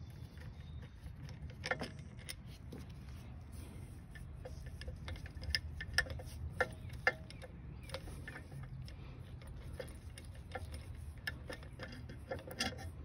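Scattered light metallic clicks and clinks of a hand tool and loose bolts at the intake of a Tecumseh OHV mower engine as the carburetor's mounting bolts are worked out, over a low steady rumble.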